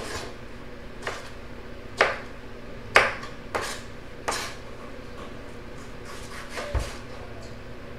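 Kitchen knife chopping tomato on a cutting board: about six separate, irregularly spaced knocks of the blade against the board.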